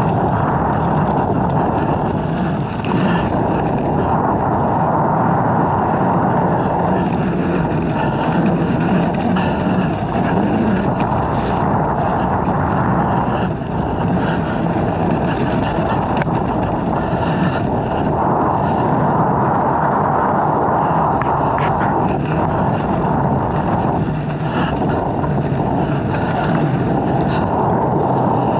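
Dirt bike engine running while riding, its throttle held fairly even with no sharp revs.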